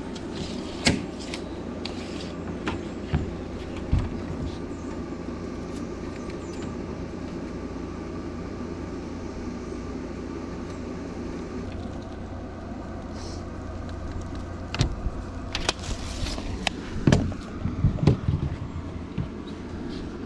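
An electric air compressor running with a steady hum, with scattered sharp knocks and clacks from work on the plywood subfloor, several of them close together near the end.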